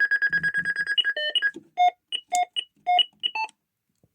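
ADE Optima Mk7 burglar alarm system sounding a rapid pulsing beep, about eight beeps a second, which stops about a second and a half in. A series of single short keypad beeps at differing pitches follows as the code is keyed in.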